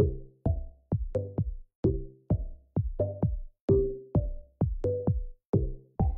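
Background music: an electronic track with a steady drum-machine beat of sharp hits, about two a second, over short pitched notes.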